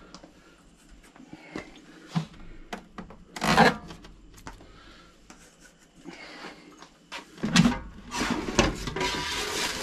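Handling noises from an air fryer being unpacked: faint rubbing and a few small clicks as tape seals are peeled off the plastic housing. About seven and a half seconds in, the drawer is pulled open and plastic wrapping rustles and crinkles continuously.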